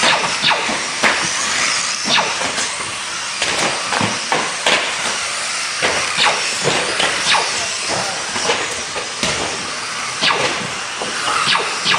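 A pack of radio-controlled cars racing on a track: a steady high hiss and whine of motors and tyres, broken by frequent short clacks and knocks.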